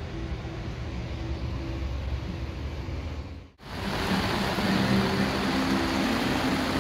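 A low steady rumble for about three and a half seconds, then, after a sudden brief drop, heavy rain pouring down hard: a loud, dense, even rush of noise.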